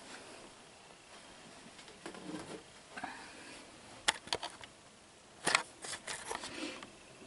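Faint handling noise: light rustling with a few sharp clicks, two close together about four seconds in and another about five and a half seconds in.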